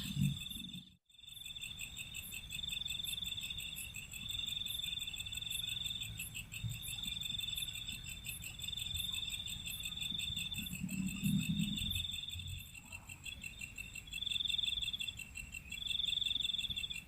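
A chorus of night insects trilling in a high, pulsing buzz, repeated in phrases about a second long with short gaps between them. It cuts out briefly about a second in.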